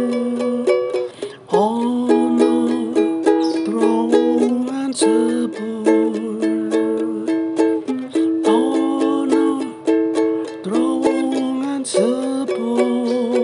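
Ukulele music: quick strummed chords under a plucked melody.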